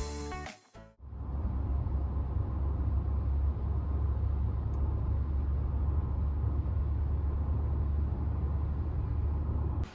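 Steady low rumble that starts about a second in and cuts off abruptly near the end.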